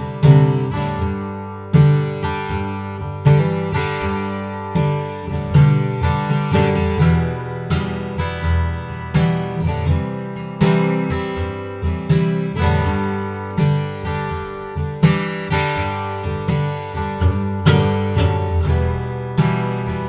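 Kopp K-35 slope-shoulder dreadnought acoustic guitar, with a torrefied Adirondack spruce top and mahogany back and sides, played solo. Chords and notes are struck one or two a second, each left to ring.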